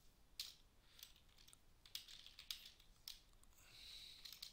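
Faint keystrokes on a computer keyboard: a handful of short, scattered clicks as a chat message is typed.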